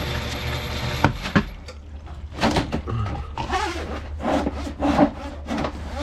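Power drain auger running, its cable rasping and scraping irregularly inside the drain pipe as it is worked back and forth at the clog. Two sharp clicks come about a second in, over the machine's steady low hum.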